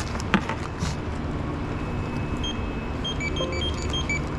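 Steady low hum of store background noise, with a single tap near the start. About two and a half seconds in comes a quick run of short electronic beeps at a few different pitches, from the checkout's register or card terminal.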